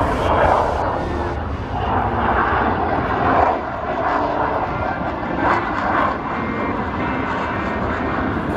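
Fixed-wing aircraft engine noise, a steady loud rush that swells several times.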